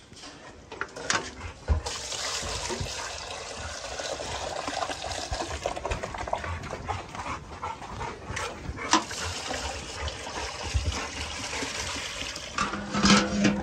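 Water running in a steady rush for about ten seconds, with dog noises and a few sharp knocks mixed in.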